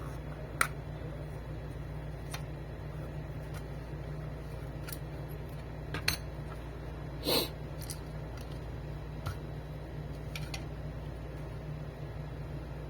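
Scattered sharp clicks and light knocks of tools and small hard parts being handled, with one longer, louder scrape about two-thirds of the way through, over a steady low hum.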